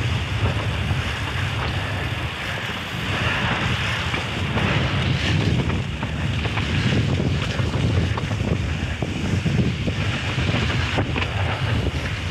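Mountain bike riding a rough trail: wind buffeting the microphone over a low rolling rumble from the tyres, with frequent sharp knocks and rattles from the bike.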